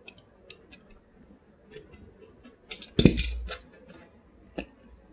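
Small clicks and scrapes of a snap-off utility knife slitting the seal sticker on a cardboard box, with a louder knock and rustle about three seconds in as the box and knife are handled.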